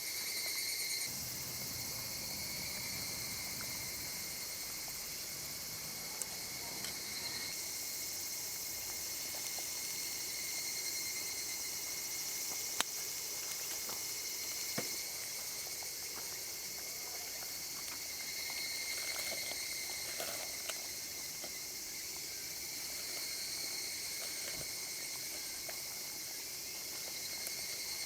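Summer insects droning steadily in several high-pitched bands, with a few light clicks and knocks, the sharpest about halfway through.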